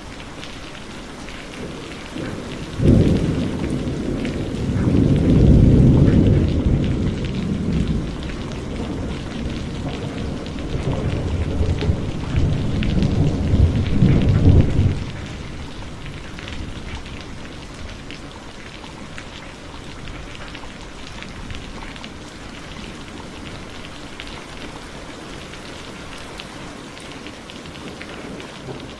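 Steady heavy rain with a long roll of thunder. The thunder starts suddenly about three seconds in, rumbles low with two swells, and stops abruptly about halfway through, leaving the rain alone.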